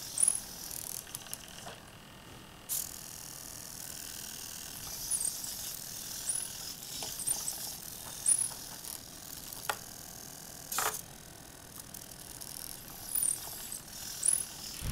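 Hobby servomotors of a homemade acrylic robot arm whirring as they swing the arm and gripper through a pick-and-place move, high-pitched, with a few sharp clicks.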